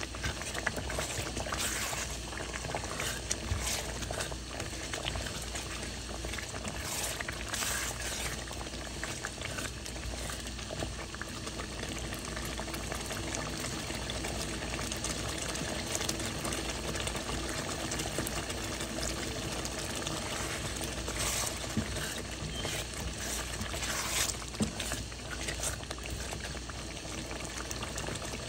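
A pot of tomato-onion sauce with chicken gizzards bubbling steadily at a simmer, with a few brief scrapes of a silicone spatula stirring in the pot.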